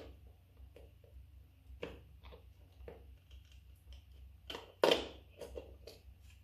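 Light clicks and taps of small parts being handled during work on a car's power-mirror glass actuator, with one louder rustling clatter about five seconds in, over a steady low hum.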